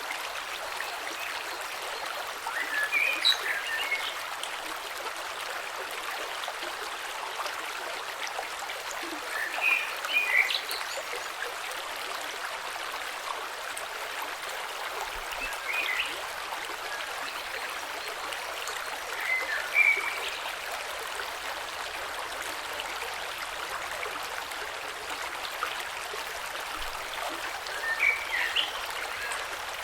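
Creek water flowing steadily over stones, with five short clusters of high chirps spread through it, each a few seconds apart and louder than the water.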